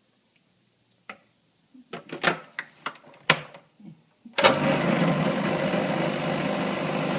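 Sharp plastic clicks and knocks as the food processor's lid and pusher are fitted. Then, a little over four seconds in, the food processor's motor starts and runs steadily, cutting flour, butter and oil into crumbs for pastry.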